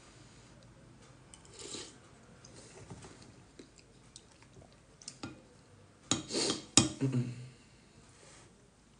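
Metal spoon clinking and scraping against a soup bowl, with scattered light clicks. A louder noisy burst of eating sounds comes about six to seven seconds in.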